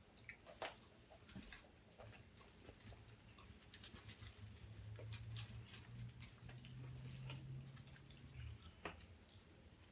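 Faint eating sounds: scattered small clicks and smacks of chewing and handling food. A low steady hum comes in about three seconds in and cuts off abruptly near the end.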